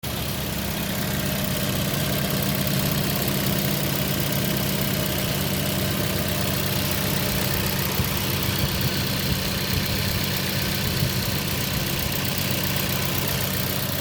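Toyota Yaris engine idling steadily.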